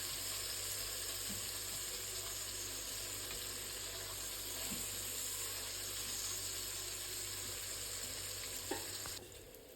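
Bacon frying in a pan, a steady sizzle as it renders its fat and crisps. The sizzle drops away suddenly about nine seconds in.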